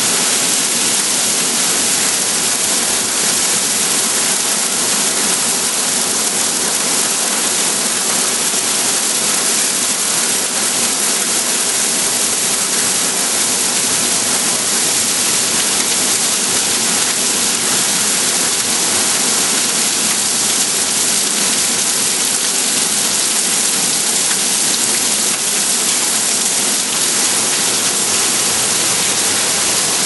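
Heavy rain pouring down in a thunderstorm, a steady loud hiss of a downpour with no break.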